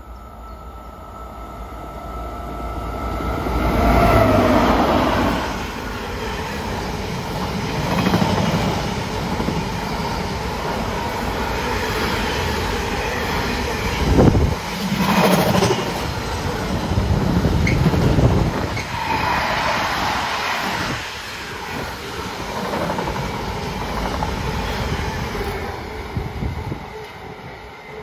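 Container freight train hauled by two Class 90 electric locomotives passing through. The sound builds as the locomotives go by about four seconds in, then a long rake of loaded container wagons rumbles and clatters past, with a sharp click about halfway through, and fades near the end.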